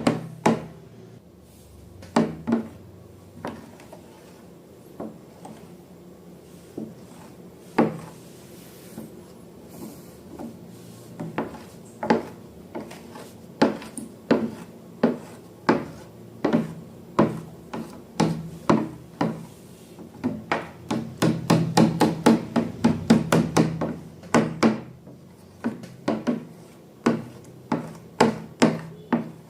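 Irregular sharp clicks and taps from handling slime-making materials, coming quicker and closer together about two-thirds of the way in.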